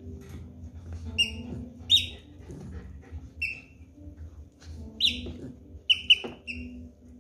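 Squeaker in a dog's blue plush tug toy squeaking as a Yorkshire terrier chews and shakes it: about seven short, high squeaks at irregular intervals, the loudest about two and five seconds in.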